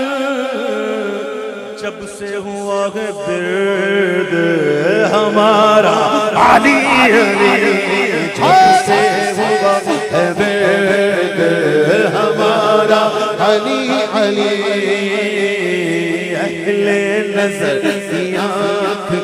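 Live naat recitation: a man's solo voice singing long, winding lines into a microphone over a steady low drone. It grows louder about four seconds in.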